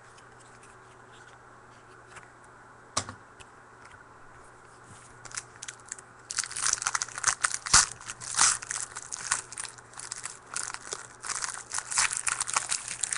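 A trading card pack wrapper torn open and crinkled, a dense irregular crackling that starts about six seconds in. Before it, one sharp click about three seconds in.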